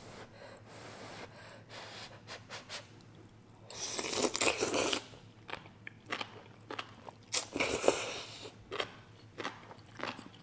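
A person eating spicy noodles and enoki mushrooms: a long slurp about four seconds in and a shorter one near eight seconds, with wet chewing and short clicks between them.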